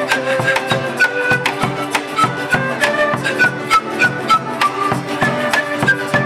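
Andean folk ensemble playing: an Andean flute melody over strummed charango and guitar, with a steady beat of about three to four strokes a second.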